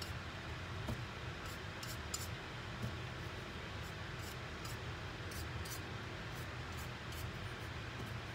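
Paintbrush bristles brushing in short, scratchy strokes over a painted tumbler, over a steady low hum.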